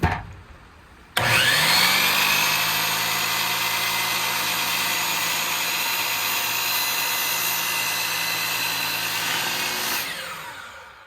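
Electric saw switched on about a second in, its motor rising in pitch to full speed, then running steadily while cutting a wooden board. Near the end it is switched off and winds down with falling pitch.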